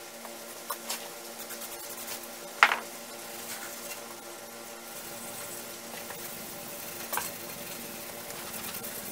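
Hands handling and rubbing along a cast-iron lathe bed: a few scattered metal knocks and clicks, the loudest about two and a half seconds in, over a steady hiss and low hum.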